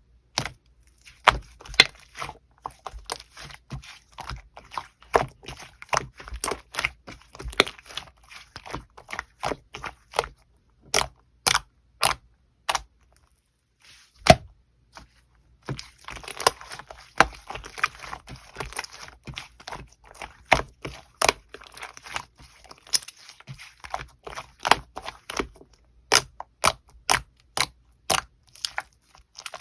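Hands pressing and squishing a white glitter slime, making a run of sharp clicks and pops with crackling in between. There is a short lull about halfway, after which the crackling is denser for a few seconds.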